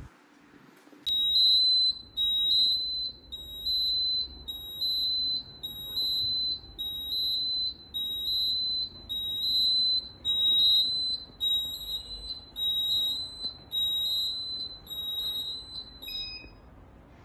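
Fire alarm panel's electronic alarm beeping: a high-pitched tone pulsing about once a second, each beep about half a second long. Near the end the pulsing stops and one short beep at a different pitch follows.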